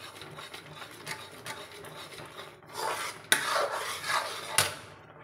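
Metal spoon stirring and scraping roasted wheat flour into hot jaggery-sugar water in a metal kadhai, a continuous rasping scrape. It grows louder about three seconds in, with two sharp knocks in the second half.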